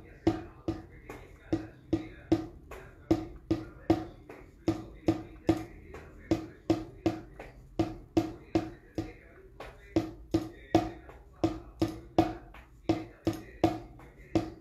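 Drumstick strikes in a steady linear-phrasing drum exercise, a sharp hit about every third of a second in uneven groupings, each with a short ring.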